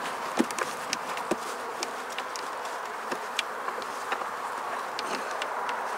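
Dense buzzing of a large honey bee colony around an opened hive, steady throughout, with scattered sharp clicks and taps from the frames being handled.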